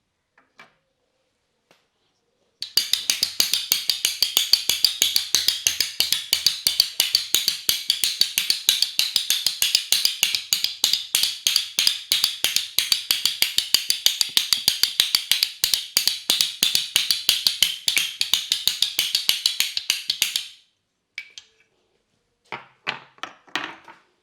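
Rapid, even percussive tapping of hands on a head during an Indian head massage, many crisp strikes a second. It starts a few seconds in and stops suddenly, followed by a few separate sharp clicks near the end.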